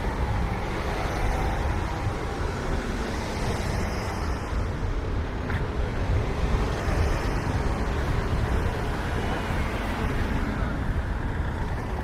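Steady city street ambience of road traffic passing, with a constant low rumble.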